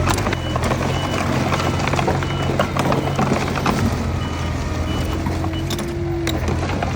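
Diesel earthmoving machinery running steadily, with a high reversing alarm beeping about once a second and scattered clanks over the engine.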